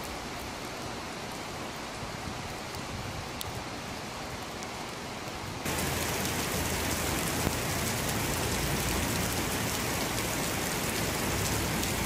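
Steady rain falling. About six seconds in it changes suddenly to louder, heavier rain splashing on wet pavement.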